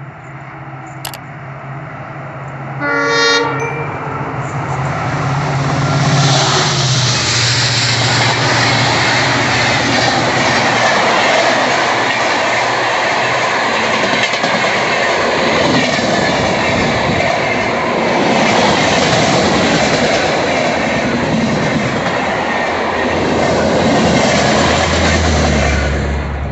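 Indian Railways WDP-4D diesel locomotive (EMD 16-cylinder two-stroke engine) approaching at speed with a low engine drone, sounding one short horn blast about three seconds in. Then loud wheel-and-rail noise as the passenger coaches run past, with a low hum rising near the end as the rear power car goes by.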